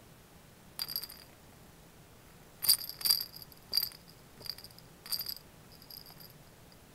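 A small bell jingling in short, irregular shakes, several times, as a kitten kicks and wrestles a plush cat kicker toy. The loudest jingles come about three seconds in.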